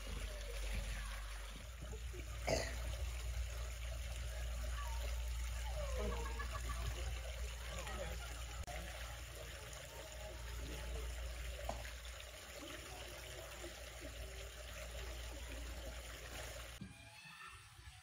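Water trickling and running steadily, as from a small stream. It stops suddenly about a second before the end.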